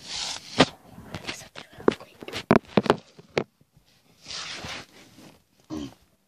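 A quick run of knocks and clicks with rustling, like things being handled and bumped at close range, then a short soft hiss a little after four seconds and one brief sound near the end.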